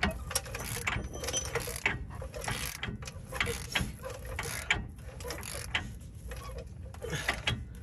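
Hand ratchet clicking in repeated strokes as it turns the axle nut on a Cadillac CTS4's rear axle, drawing the axle shaft out through the new hub bearing's splines to seat it.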